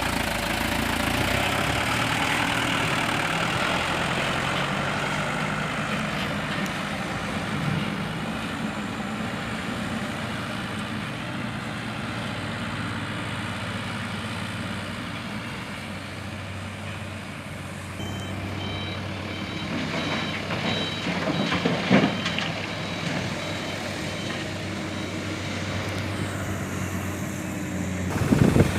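Heavy diesel dump truck engine running steadily. A reversing alarm beeps in a regular pattern for several seconds, starting about two-thirds of the way in, and there is a short knock partway through the beeping.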